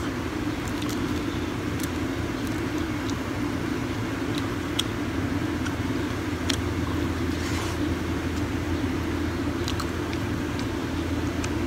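Steady low urban background hum, with a few faint clicks of chewing close to the phone's microphone.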